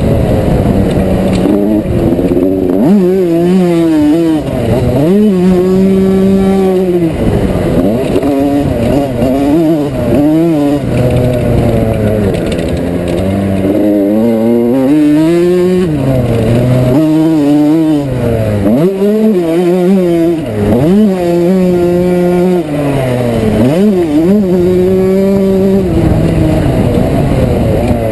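1987 Yamaha YZ125's single-cylinder two-stroke engine being ridden hard, its pitch climbing and dropping again and again every second or two as the throttle is opened and shut and the gears change.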